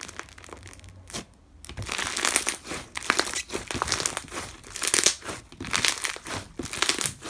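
Crunchy slime with rainbow beads and crushed foam being squeezed and worked by hand, making dense crunchy crackling in uneven waves that starts about two seconds in after a brief single crackle.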